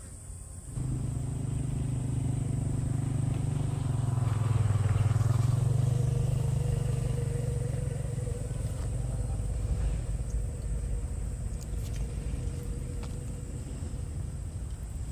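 A small engine passing close by: its hum comes in abruptly about a second in, grows loudest around five seconds and then slowly fades away.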